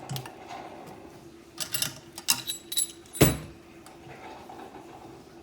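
Hardware being handled on a workbench: light metallic clinks and rattles, with one sharp knock about three seconds in.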